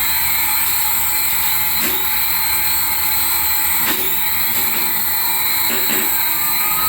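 Remote-control toy aircraft whirring: a steady, high-pitched electric whine, with a few light clicks about 2, 4 and 6 seconds in.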